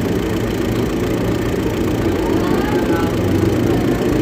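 Hino diesel engine idling steadily, its number 4 injector nozzle just tightened down; the strong puffing of gas past the injector's burnt O-ring has stopped, though diesel still seeps out.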